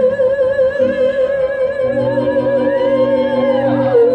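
A woman singing one long held note with a wide vibrato over a live band, the band's low chords coming in about two seconds in.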